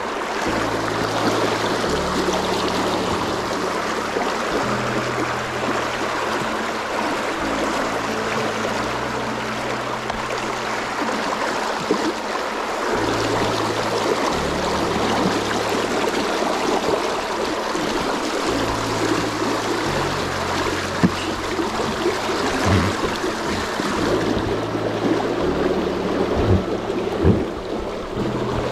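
River water rushing and splashing over shallow rapids. Underneath runs background music with a slow bass line that steps between notes, and a few knocks come near the end.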